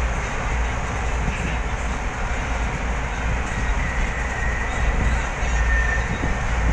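Steady engine rumble and road noise heard inside the cab of a vehicle driving along a highway.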